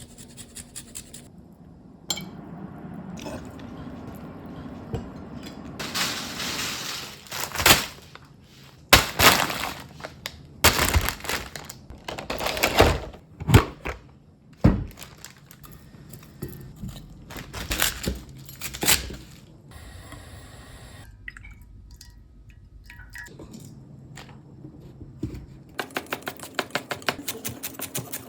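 Kitchen cooking sounds: utensils and dishes clinking, knocking and scraping, with a run of rapid, evenly spaced knocks near the end.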